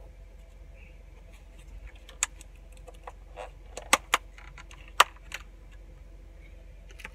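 Several sharp clicks and knocks of hard objects being handled, five or six spread over a few seconds with the loudest about five seconds in, over a faint steady hum.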